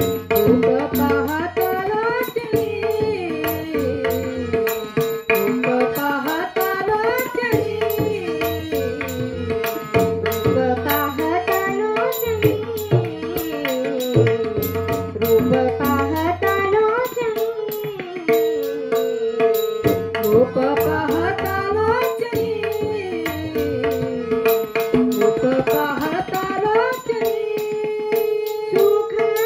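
Indian devotional music: tabla playing a steady rhythm over a held drone note, with a melodic line that slides up and down in repeated phrases.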